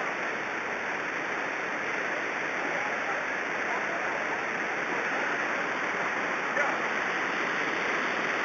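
Waterfall pouring, a steady even rush of water.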